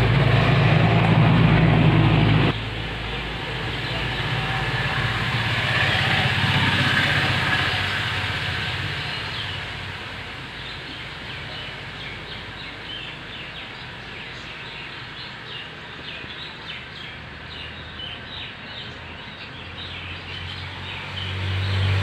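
Outdoor background with a loud, steady low engine-like hum that cuts off suddenly a couple of seconds in, then a hiss of ambient noise with a long run of short, high bird chirps. The low hum comes back near the end.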